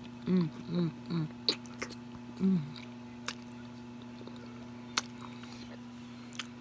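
A person eating with mouth noises: four short, falling closed-mouth 'mm' hums in the first three seconds, and a few sharp clicks scattered through, over a steady low electrical hum.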